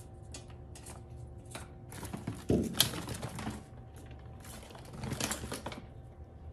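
In-shell peanuts rattling and crinkling in a steel pail as a chipmunk rummages in them, then longer bursts of rustling with a thump about two and a half seconds in.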